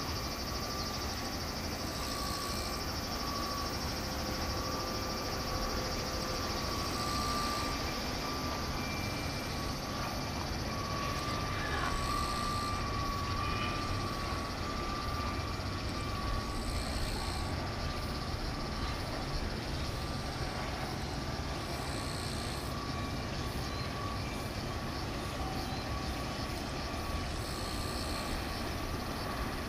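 Steady outdoor background rumble and hiss with a constant mid-pitched hum, and a faint high hiss that swells about every five seconds.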